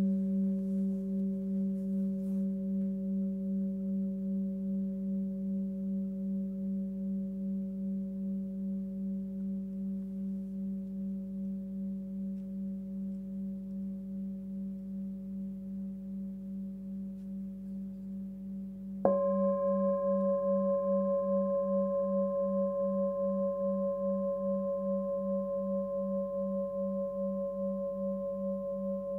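Hand-forged Sun Moon singing bowl tuned to 193 Hz (G) ringing on after being rubbed with a wooden stick, its low hum pulsing about twice a second and slowly fading. About 19 seconds in it is struck once and rings again, louder and brighter, with higher overtones added.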